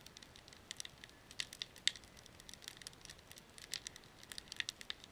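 Campfire of split wood crackling, with irregular sharp pops and snaps.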